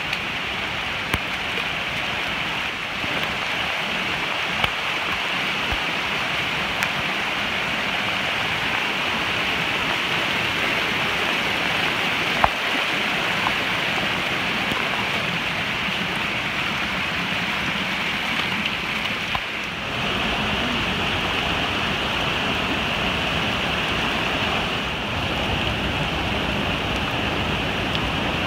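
Steady rush of rain and fast-flowing floodwater from a rain-swollen mountain stream, with a few sharp clicks now and then.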